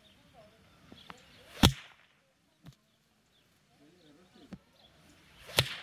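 A bird-scaring rope whip cracked twice, about four seconds apart. Each crack is sharp and loud and comes after a short rising swish of the swung rope.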